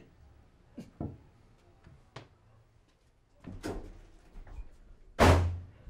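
A few faint knocks and shuffles, then a loud door bang with a heavy thump about five seconds in.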